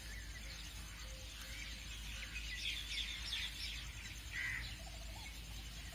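Small birds chirping faintly in the background: scattered short calls, with a quick run of rapid chirps about halfway through.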